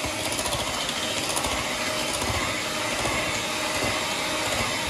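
Electric hand mixer running steadily, its beaters churning through thick, cooled set custard to break it up smooth.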